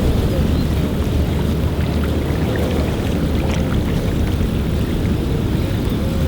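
Wind blowing hard across the microphone with small waves lapping at a lakeshore, a steady rumbling rush with a few faint short high ticks scattered through it.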